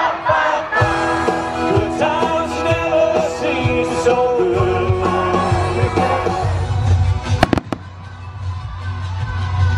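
Pop song with a singing voice played loud for a fireworks display, with a quick cluster of sharp firework bangs about seven and a half seconds in, then a low rumble under the music.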